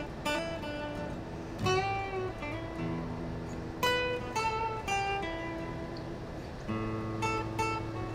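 Solo guitar improvisation: single plucked notes ringing out over sustained low notes, with a bent note about two seconds in.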